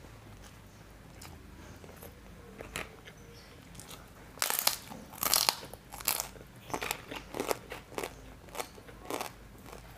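Soft chewing of a mouthful, then from about four seconds in loud crisp crunches as a kerupuk opak cassava cracker is bitten and chewed, about two crunches a second.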